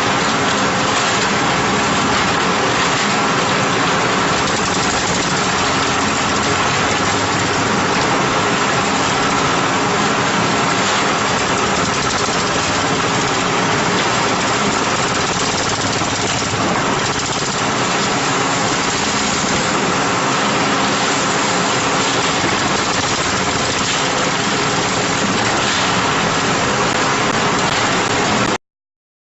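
JZC series roller-drive drum concrete mixer running: a loud, steady mechanical din from the drive and the turning drum. It cuts off abruptly near the end.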